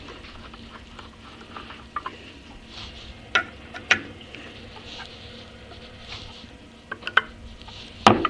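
Screwdriver snugging steel screws into a cast-iron Atlas 10F lathe saddle: scattered metal clicks and taps of the tip and tools on the casting, with the loudest knock near the end.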